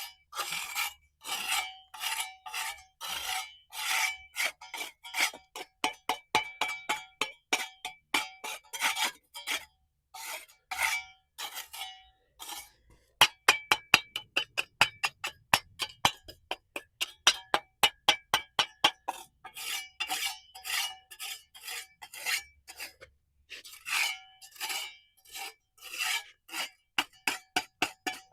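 Dried mortar being scraped off a pool's concrete surface by hand, in short repeated strokes with a ringing note; the strokes come faster and sharper in the middle.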